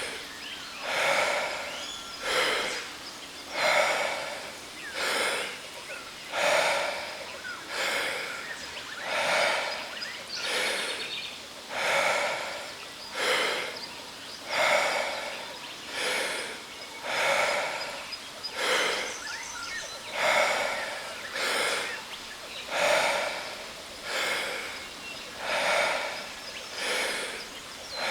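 Wim Hof power breathing: deep, forceful breaths taken in a steady rhythm, about one every 1.3 seconds, over the steady rush of a waterfall.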